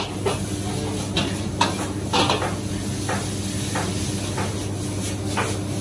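Metal spatula scraping and clacking against a wok as noodles are stir-fried over high heat, in irregular strokes every half second to a second, with food sizzling and a steady low hum underneath.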